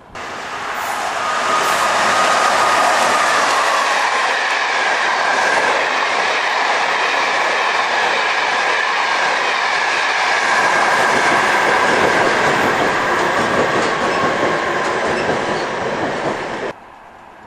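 Passenger train passing through a station at speed: a loud, steady rush of wheels on rail with a faint high whine. It builds over the first two seconds and cuts off abruptly near the end.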